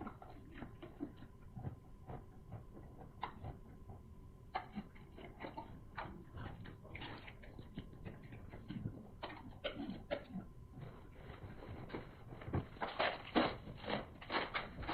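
Close-up eating sounds: irregular wet clicks and chewing noises from eating boiled sea snail meat, getting denser and louder over the last few seconds.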